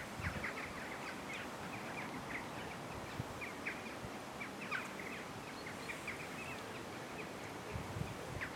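Quiet outdoor ambience: a steady soft hiss with small birds twittering in short, high chirps throughout.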